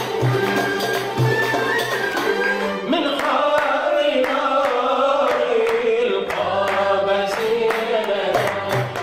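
Background music with steady hand percussion; a singing voice comes in about three seconds in.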